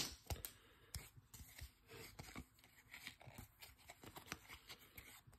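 Faint, scattered ticks and slides of glossy Panini Prizm baseball cards being handled and flipped through one at a time, with a sharper click right at the start.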